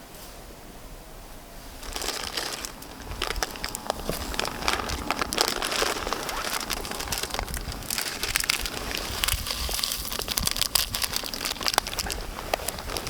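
Plastic food packaging crinkling and rustling as it is handled and opened, starting suddenly about two seconds in with dense, irregular crackles.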